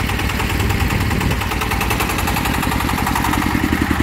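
Single-cylinder diesel engine of a homemade serkel truck running with a fast, even chugging knock.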